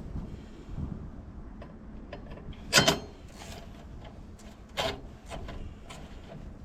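Tools and parts being handled during work on a car battery: scattered light clicks and knocks, with two louder brief scraping rubs about three and five seconds in.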